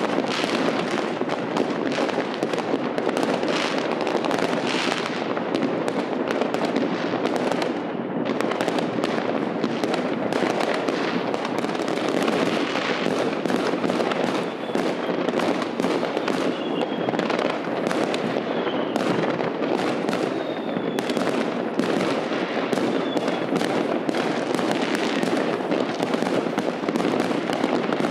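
Fireworks and firecrackers going off without pause: many overlapping bangs and crackles. A few faint short whistles come through in the middle.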